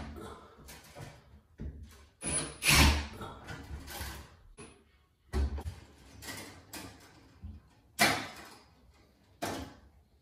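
Metal fluorescent fixture and its wiring being worked loose and pulled down from a ceiling housing: a series of short, irregular scrapes, rattles and clunks. The loudest come about three seconds in and again about eight seconds in.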